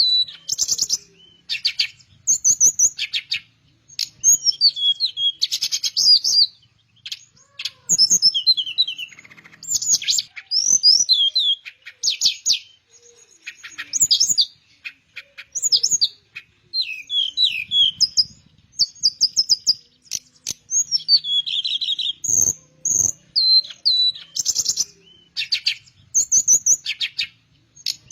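Teledekan melayu, a small flycatcher, singing energetically: phrase after phrase of rapid high chirps, quick whistled slurs and buzzy trills, with short pauses between phrases.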